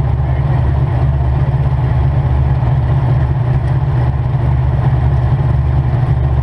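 Demolition derby car's engine idling loudly and steadily through open exhaust pipes that stand straight up through the hood.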